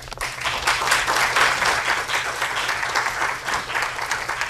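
Audience applauding, many hands clapping together, thinning out near the end.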